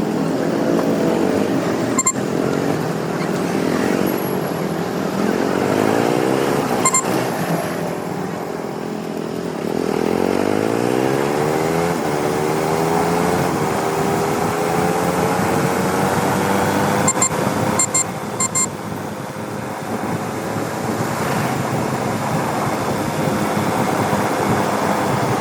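KTM 200 Duke's single-cylinder engine on the move in traffic: it revs up twice as the bike accelerates, its pitch rising each time, then settles into a steady, slowly climbing cruise. A few short sharp clicks are heard along the way.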